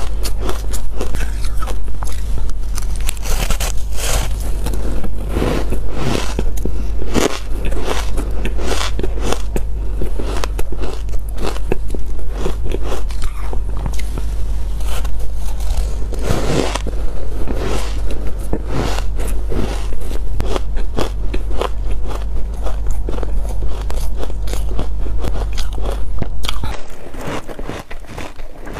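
Close-up crunching and chewing of frozen layered ice bars: crisp bites followed by dense, irregular crunches as the ice breaks in the mouth. A low steady hum runs underneath and stops shortly before the end, after which the crunching is quieter.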